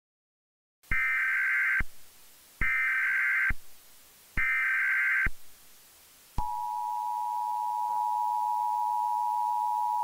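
Emergency Alert System SAME header: three bursts of digital data tones, about a second each. About six and a half seconds in, the steady two-tone EAS attention signal starts, announcing a new alert.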